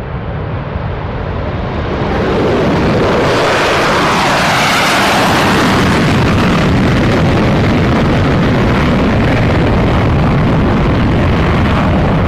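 A pair of F-16 fighter jets taking off. The jet engine noise swells over the first two seconds into a loud, steady roar, sharpest as the jets climb past.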